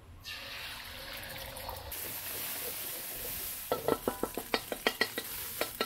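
Beaten egg sizzling in hot oil in a wok, a steady hiss. From a little past halfway, a wooden spatula scrapes and knocks against the wok in rapid repeated strokes as the egg is scrambled.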